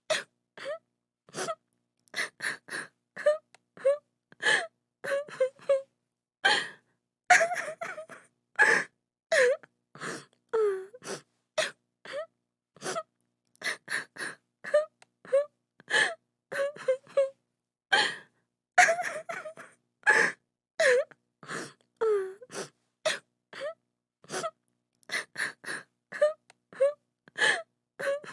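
A woman sobbing and crying: quick gasping breaths and short wailing sobs that fall in pitch, coming in rapid broken bursts with brief silences between.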